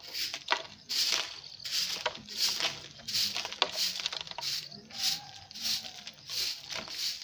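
Short hand broom of bundled dry stalks sweeping bare packed earth: repeated scratchy swishes, about two to three strokes a second, with an occasional sharper scrape.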